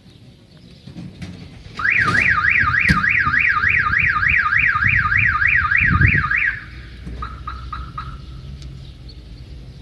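Car alarm sounding a loud, fast warbling siren, about four up-and-down sweeps a second, for about five seconds, then a few short chirps. Low rumbling and a couple of sharp knocks lie underneath.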